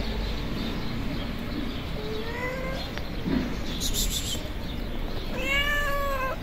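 Hungry tabby cat meowing twice: a short rising meow about two seconds in, then a longer, louder meow near the end.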